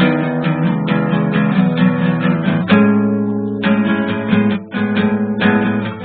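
Background music: strummed acoustic guitar playing a rhythmic chord pattern, pausing briefly about halfway through.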